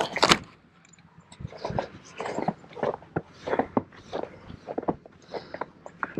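A brief clatter of the RV's metal door and knob right at the start, then footsteps through deep snow, about two steps a second.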